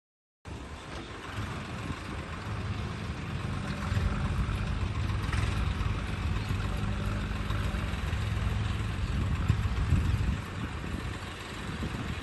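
Engine of construction machinery running steadily, a low hum that grows louder over the first few seconds and eases a little near the end.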